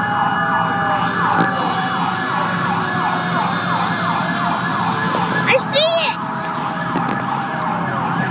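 Emergency vehicle siren in a fast yelp: quick falling sweeps of pitch repeating about three or four times a second, over a low steady hum of passing vehicles.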